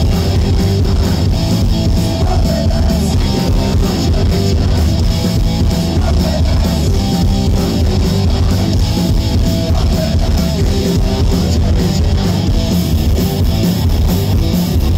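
Punk rock band playing loud and live: distorted electric guitars and a drum kit pounding along without a break.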